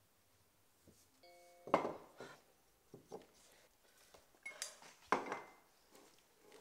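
A few sharp knocks and clinks of hard objects handled on a desk, the loudest about two seconds in and another pair near five seconds. Just before the first knock a brief tone of a few steady pitches sounds.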